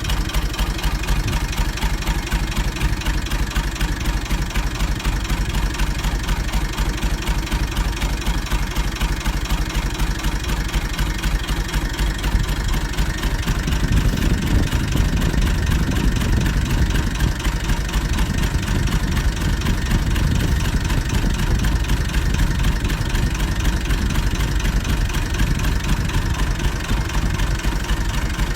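Massey Ferguson 135's Perkins AD3.152 three-cylinder diesel running through a straight pipe, idling with a steady exhaust beat. About halfway through it gets a little louder and stays so.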